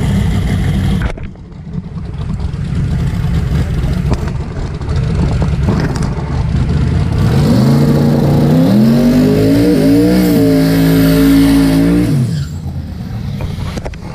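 Drag racing car's engine running loud, then revving hard from about halfway in, its pitch climbing in steps as it accelerates through the gears. It holds high and loud before cutting off sharply near the end.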